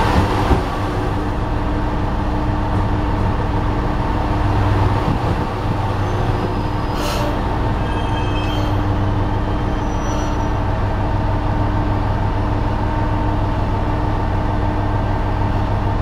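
Tosa Kuroshio Railway 9640-series diesel railcar, heard from its open deck, rolling slowly to a stop at a station platform. Its diesel engine runs on with a steady low hum once the railcar stands, and a short hiss comes about seven seconds in.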